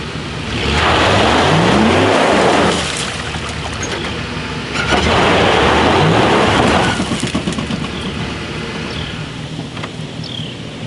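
Ford F-150 pickup stuck in river-bank mud: the engine revs up twice, about two seconds each, with the wheels spinning and churning mud and water, and idles between. The truck fails to pull free.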